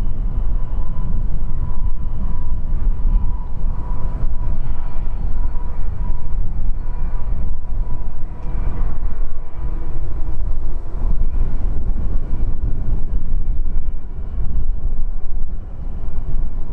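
Distant jet roar from an Embraer 195's General Electric CF34 turbofans as the airliner rolls out and slows on the runway after landing, with a faint steady whine that fades about halfway through. A low rumble, partly wind on the microphone, underlies it.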